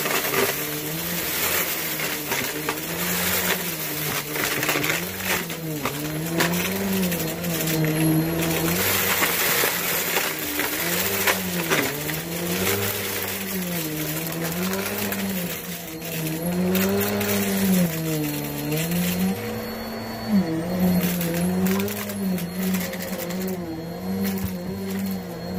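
Shark Helix vacuum cleaner running while it is pushed back and forth over a dirty floor, its motor pitch rising and falling with each stroke. Crackling clicks of grit and debris being sucked up, busiest in the first half.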